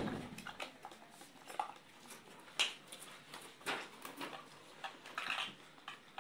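Cardboard box and its fitted cardboard insert being handled: scattered light knocks, scrapes and rustles.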